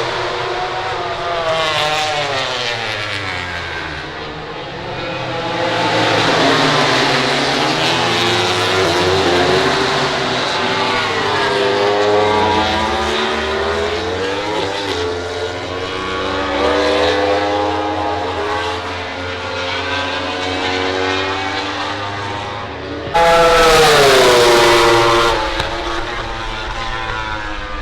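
MotoGP four-cylinder race motorcycles running on the circuit, their engine pitch repeatedly rising and falling as they accelerate, shift gears and pass. About 23 seconds in, one goes by much louder for a couple of seconds, its pitch dropping as it passes.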